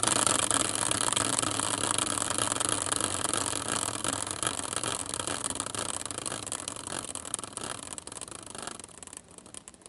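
Hand-spun caster wheel on a metal bracket, spinning down: a rapid, continuous clatter that grows gradually quieter as the wheel slows. It breaks into a few separate ticks as the wheel comes to a stop near the end.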